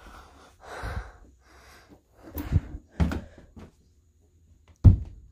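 A plastic traffic cone being tossed onto an upholstered chair: a few short, soft knocks and rustles, then a sharp thump near the end, the loudest sound.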